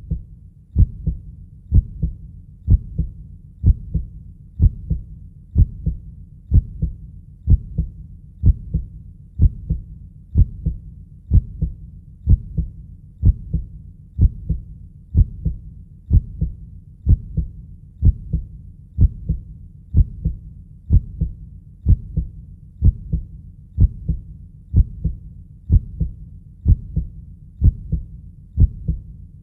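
Heartbeat sound: a steady, low lub-dub double beat repeating about once a second.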